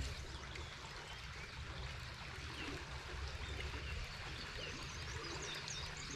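Quiet outdoor ambience on the water: a low, steady rumble with faint, scattered short chirps in the second half. A single sharp click right at the start.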